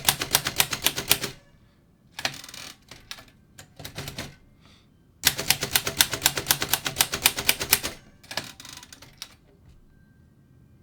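Remington Rand Deluxe Model 5 manual portable typewriter keys struck in fast runs, about eight keystrokes a second, typing capitals with the shift lock on. One run stops about a second in and another runs from about five to eight seconds in, with a few lighter clicks and knocks between them.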